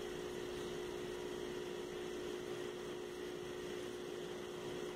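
Room tone: a steady hiss with a constant low hum, and no distinct sound events.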